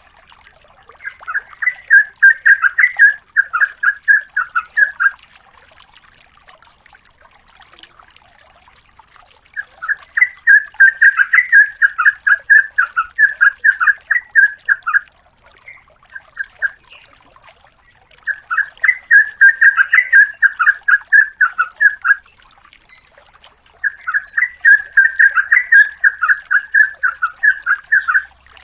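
Sooty-headed bulbul (trucukan) singing long, rapid runs of repeated bubbling notes, about four notes a second. Four bouts of a few seconds each, with pauses of a few seconds between them.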